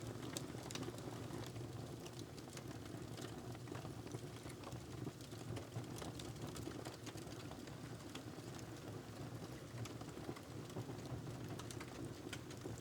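Wood fire in a fireplace crackling, irregular small pops and snaps over a steady low rumble.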